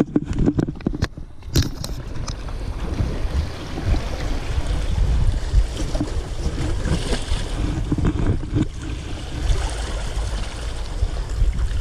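Wind buffeting the microphone over sea waves washing against rocks, with a few sharp knocks in the first two seconds.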